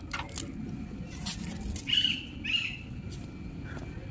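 Two short, high animal calls about half a second apart, over a steady low background rumble, with a few light clicks near the start.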